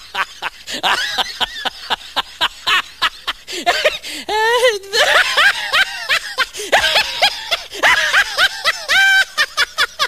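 A person laughing hard: a long run of short, rapid cackling laughs that rise and fall in pitch.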